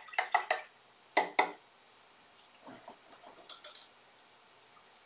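Quick sharp taps of a flat paintbrush being knocked to flick splatters of paint: a rapid cluster of taps at the start, two more about a second in, then fainter, scattered taps around three seconds in.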